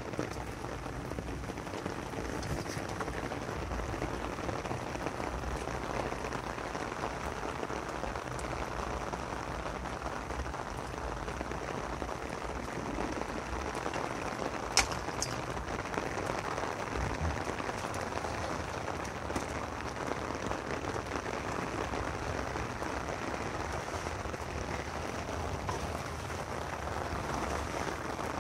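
Steady rain falling, an even hiss, with one sharp click about halfway through.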